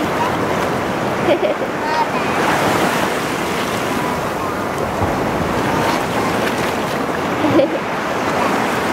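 Ocean surf washing in at the shoreline: a steady rush of breaking waves.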